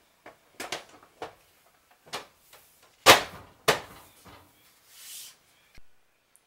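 Tinted plastic side panel of a da Vinci 3D printer's enclosure being pressed and snapped back onto its frame by hand: a run of plastic knocks and clicks, the two loudest about three seconds in, half a second apart.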